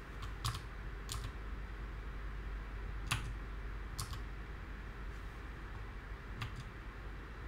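A few separate keystrokes on a computer keyboard, about five presses spaced a second or more apart, over a faint low hum.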